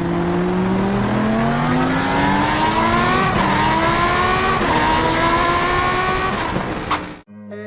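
Car engine accelerating hard through the gears: its pitch climbs steadily, drops at two gear changes, and then cuts off suddenly near the end.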